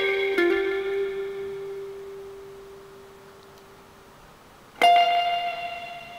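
Electric guitar played through a PT2399-based digital spring reverb pedal. A note struck at the start rings and fades away over about four seconds. A chord is struck near the end and left to ring.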